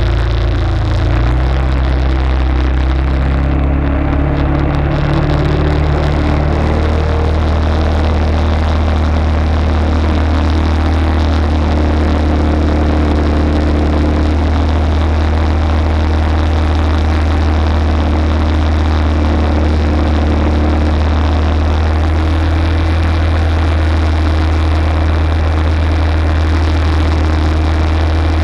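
Arctic Cat ATV engine running loud and steady. Its pitch shifts during the first few seconds, then holds even.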